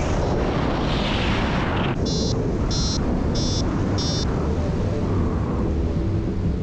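Wind rushing over the microphone of a paraglider in flight, with a swell of hiss about a second in. In the middle come four short high-pitched beeps, evenly spaced a little over half a second apart.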